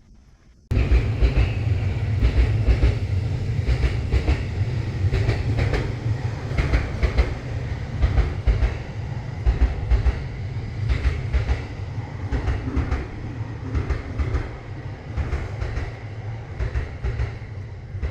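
A train running past on the rails: a heavy rumble with repeated clattering of wheels over rail joints. It starts abruptly about a second in and eases off near the end.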